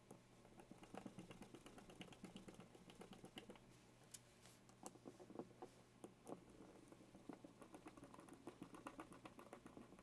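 Faint, irregular clicking and scraping of a screwdriver turning the screws that fasten the cover of a Gemco 2006 rotary limit switch.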